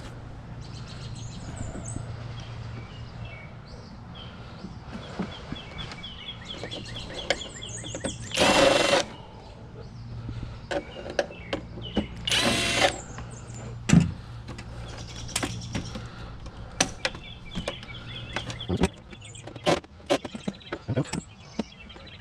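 A handheld power tool runs in two short bursts, about eight and twelve seconds in, between scattered clicks and knocks, over a steady low hum.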